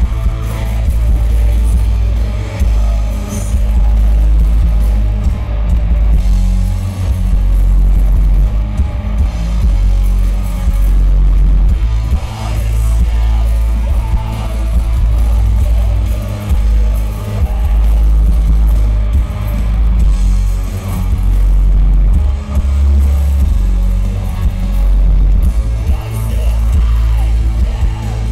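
Heavy post-metal band playing live and loud: distorted electric guitars, bass and drum kit with crashing cymbals, and a singer at times. Recorded from the crowd, with a heavy, booming low end, and the whole band swelling and easing every couple of seconds.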